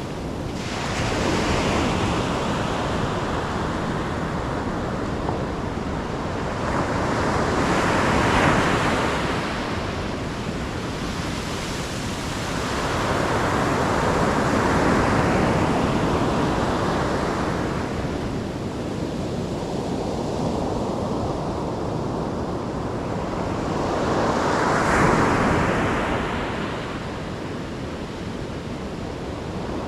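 Ocean surf: waves breaking and washing back, a steady rushing that swells and fades in slow surges about four times, each several seconds long.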